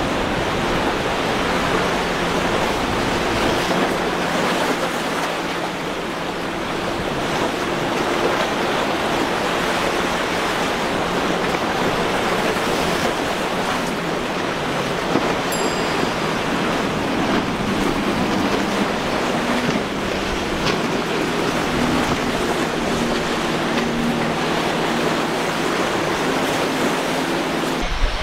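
Steady rush of surf and wind, with the faint drone of outboard boat engines running through the chop.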